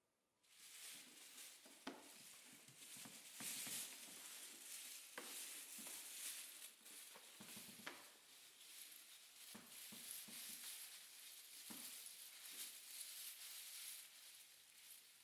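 Quiet, dense crackling and sizzling noise dotted with sharp clicks, starting abruptly about half a second in and dying away near the end.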